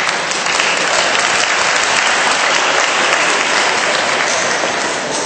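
Audience applauding, steady clapping that thins out near the end.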